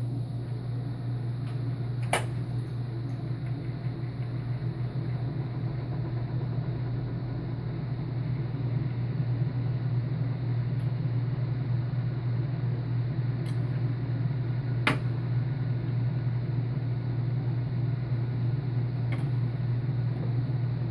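Over-the-range microwave's vent fan running with a steady low hum, switched on just before; a few light clicks sound over it, about two seconds in and again near the end.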